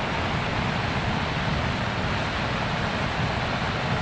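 Muddy flash-flood torrent rushing past in a steady, loud wash of noise.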